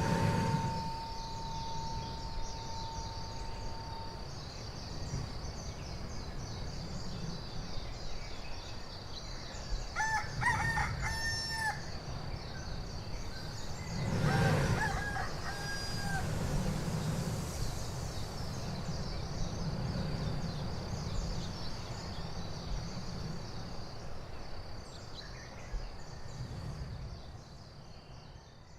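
Surf surging through the Spouting Horn blowhole in the lava shelf: a low, growling wash that swells several times, loudest about halfway through. A rooster crows twice, around ten and fourteen seconds in, over a steady high-pitched whine.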